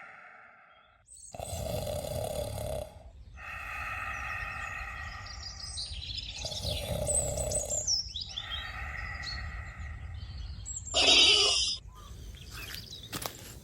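Sound-effect montage of a man snoring in long, regular breaths, with birds chirping over it. A short, loud hissing burst cuts in near the end.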